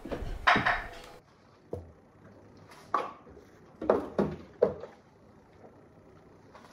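Groceries being put away in an open refrigerator: a brief plastic-bag rustle, then several light knocks and clunks of containers and the fridge drawer over the next few seconds.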